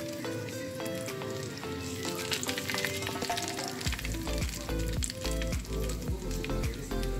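Fat sizzling and crackling in a foil stovetop popcorn pan over a gas flame, heating before the kernels begin to pop. Background music plays under it, and a bass line comes in about four seconds in.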